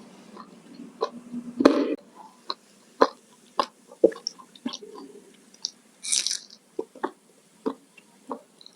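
Close-miked chewing and eating: a string of short wet mouth clicks and smacks at an uneven pace, with a brief crunch about six seconds in.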